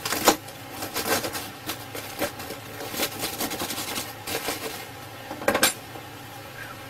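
A table knife and fork scraping and tapping against a hard surface as a crumbly lump of dried cigarette tar is broken up. It comes as a run of irregular clicks and scrapes, the sharpest right at the start and again about five and a half seconds in.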